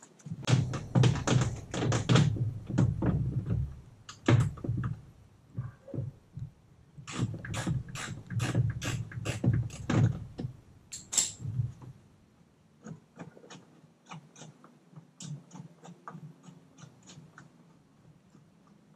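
A run of knocks, clicks and thuds from hands and tools working on a Tesla Model 3's plastic front bumper and its fasteners. They come thick and heavy for about twelve seconds, then thin out to lighter ticks.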